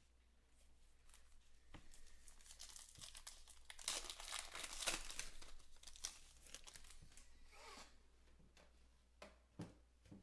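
Trading-card pack wrapper from 2019 Panini Stars & Stripes baseball being torn open and crinkled in the hands, loudest about four to five seconds in. A few soft clicks near the end.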